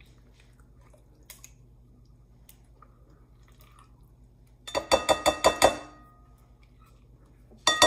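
A stainless steel measuring cup knocked against the rim of a glass mixing bowl to shake out mayonnaise: a quick run of ringing clinks lasting about a second, then one more ringing clink near the end.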